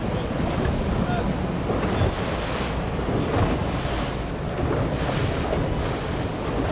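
Wind buffeting the microphone over the rush of water and waves along a moving boat's hull, gusting up and down.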